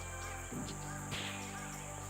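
Background music with sustained bass notes and a regular beat, over a steady high insect buzz.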